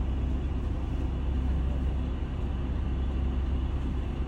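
Steady low rumble of a city bus's engine and road noise, heard from inside the cabin.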